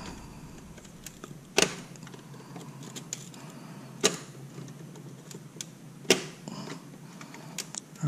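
DDR4 registered memory modules being pressed down into the Dell Precision T7910's DIMM slots: three sharp plastic clicks about two seconds apart as the slot latches snap shut, with small handling ticks between.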